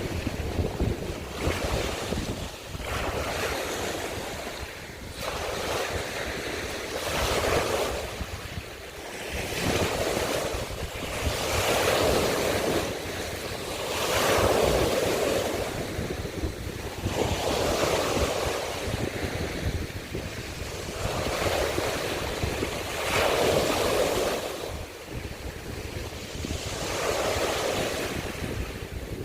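Small sea waves washing in over a shore of broken scallop shells, each wash a rushing hiss that swells and fades about every two to three seconds. Wind rumbles on the microphone underneath.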